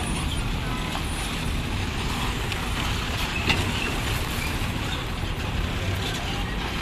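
Diesel engine of an Ashok Leyland truck hauling a bulk cement tanker, running low and steady as it rolls slowly past, over a steady traffic noise. A single short, sharp knock about halfway through.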